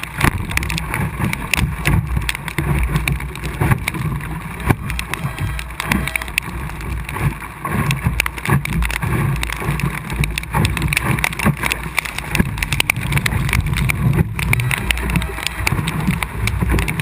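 Water splashing and rushing along the hull of an Optimist sailing dinghy under way in chop, with wind rumbling on the microphone and many small irregular knocks and spatters.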